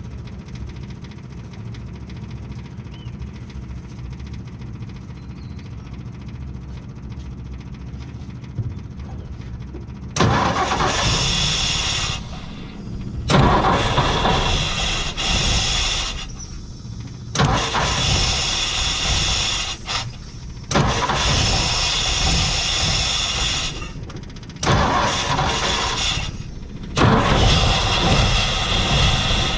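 1958 Ford F100's six-cylinder engine running roughly at low speed, not firing on all six cylinders, a misfire that more than likely comes from fried ignition points. About ten seconds in, a series of six loud bursts of one to three seconds each begins, as it is cranked over again and again to get it started.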